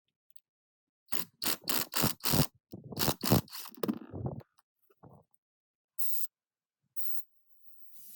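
A quick run of about eight sharp knocks over some three seconds, then two short hisses about a second apart.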